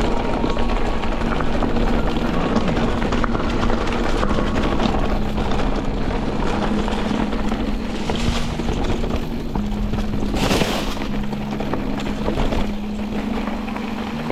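Mountain bike riding down a dirt trail: a steady rush of wind on the microphone and tyre noise over the ground, with a brief louder rush about ten seconds in. Background music with held low notes runs underneath.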